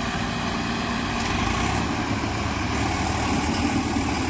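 Diesel tractor engines running steadily, the lead Swaraj 744 XT pulling a second tractor and a loaded trolley on a tow chain.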